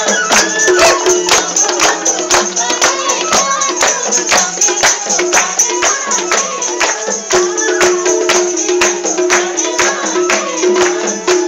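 Live Nepali Deusi festival music: hand percussion with a tambourine-like jingle keeping a quick, even beat of about four strokes a second under a steady held melody line.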